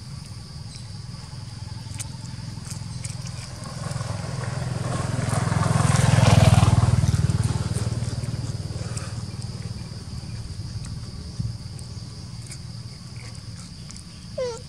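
A motor vehicle passing by: its engine noise swells to a peak about six seconds in and then fades away.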